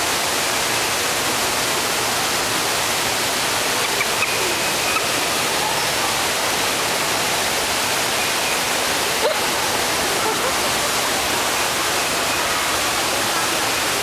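Steady rushing of falling water, as from a waterfall, with a few faint short high calls over it.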